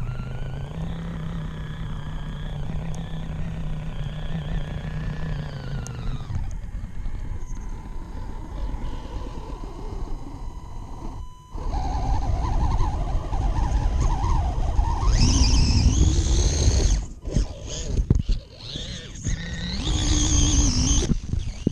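Onboard sound of a radio-controlled rock crawler driving over mud and dirt: its electric motor and gear drivetrain whine steadily, then get louder in the second half with pitch rising as throttle is added.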